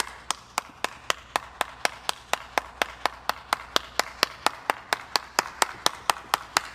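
Sharp, evenly spaced clicks or taps, about four a second, over a faint low hum.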